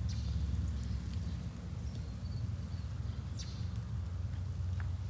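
Wind buffeting the microphone in a steady low rumble, with a few sharp crackles of ice now and then.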